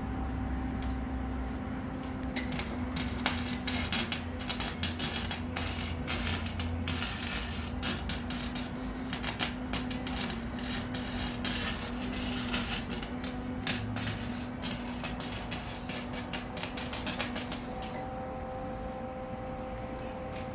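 A welding arc crackling and spitting in one long continuous bead, starting about two seconds in and stopping near the end, over a steady electrical hum.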